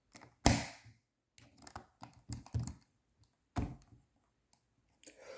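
Clicks and taps of the plastic body of a Sony Handycam DCR-HC21 camcorder being handled. One sharp snap comes about half a second in, followed by a run of lighter clicks and another click about three and a half seconds in.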